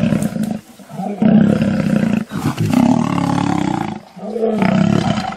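Lions roaring and snarling in a fight, in four loud bouts with short breaks between.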